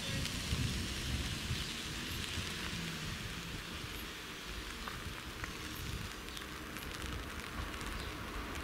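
Steady hiss of rain falling on wet pavement, with a few faint scattered ticks of drops.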